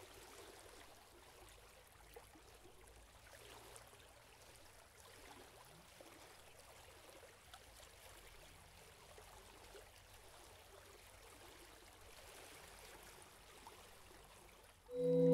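Faint, even rush of river water flowing, with a few small clicks. Near the end, loud sustained music tones come in.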